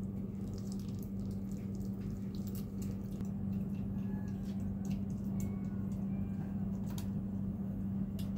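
Frequent small wet clicks and smacks from cats' mouths, kittens lapping wet food and a cat licking, over a steady low hum.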